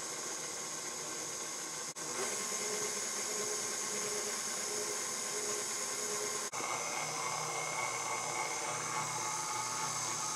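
KitchenAid Artisan stand mixer running steadily with its dough hook, kneading flour into bread dough. The motor gives a steady whine, with two very short breaks.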